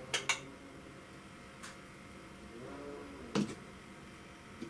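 Sharp ticks, roughly one every one and a half to two seconds, the first a quick doubled tick, over a faint steady background.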